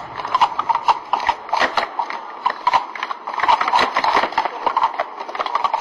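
Plastic sport-stacking cups clattering rapidly against each other and the table as they are stacked up and taken down at speed, a quick irregular run of light clicks and clacks.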